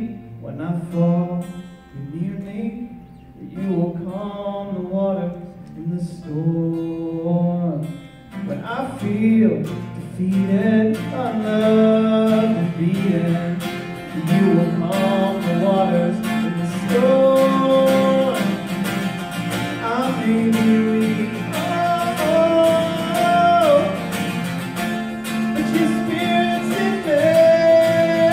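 A man singing a slow worship song while playing acoustic guitar, performed live. The playing is sparse and quieter at first, and the strumming grows fuller and louder from about eight seconds in.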